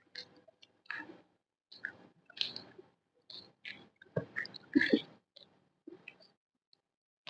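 A person chewing food close to the microphone, with irregular bites and mouth sounds about once or twice a second.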